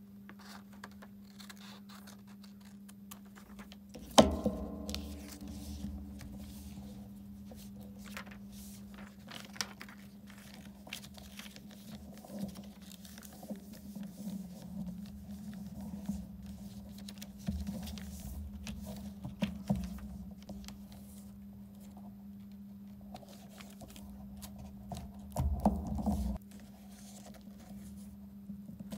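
Paper being handled, folded and pressed flat by hand: soft rustles, scrapes and small taps under a steady low hum. About four seconds in there is one sharp knock with a brief ring, and near the end a short louder rasping burst.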